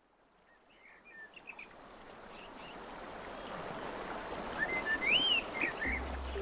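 Songbirds chirping in short, gliding calls over a steady outdoor hiss that fades in and grows louder.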